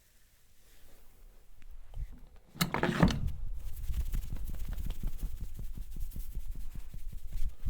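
Hands striking the head and shoulders in rapid, even taps during an Indian head massage, a run of many soft thumps several a second, after a loud brief swish about two and a half seconds in.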